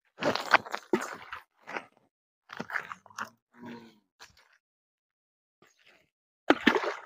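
Gravel and pebbles crunching and clattering in short irregular bursts as children walk over a stony riverbank and pick up stones, loudest just after the start and again near the end.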